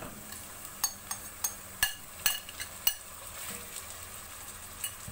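Marinated chicken frying in hot oil with onions, a steady sizzle, while a metal spoon stirs it and clinks sharply against the pot several times.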